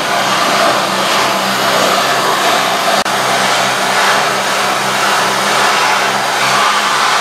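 Power grinder running continuously on metal, a loud, steady hissing whine with a low motor hum underneath, briefly cut off about three seconds in.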